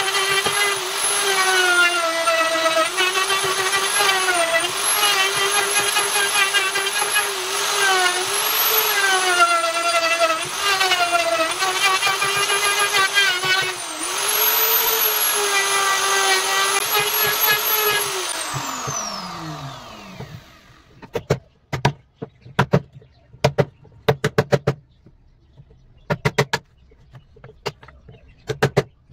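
Electric plunge router cutting a groove along a wooden bed post, its motor whine dipping and rising as the bit bites into the wood. About 18 seconds in it is switched off and winds down with a falling whine. After that come groups of sharp knocks as a chisel is struck to clear out the routed slot.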